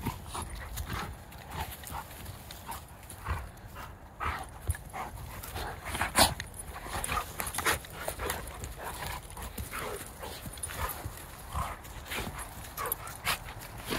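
Golden retrievers play-fighting: short, scattered dog vocal sounds over scuffling and pawing, with a louder, sharper one about six seconds in.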